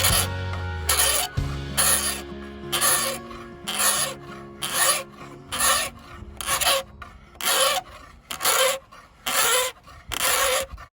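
Hand file rasping along the edge of Formica laminate to bring it flush with the countertop, in even strokes about one a second, over faint background music.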